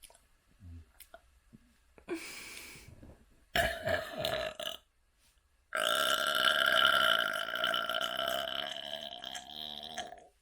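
A person burping: a short burp about three and a half seconds in, then one long drawn-out burp of over four seconds that holds a steady pitch, slowly fades and cuts off suddenly near the end.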